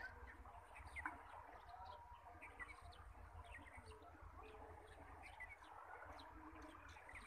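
Faint, frequent chirping of small birds over a low steady rumble.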